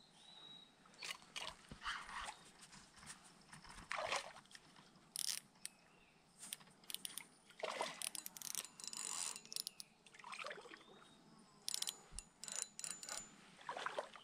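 Short, irregular splashes and gurgles on the water surface, a second or so apart, from a topwater lure being twitched and retrieved on a spinning rod.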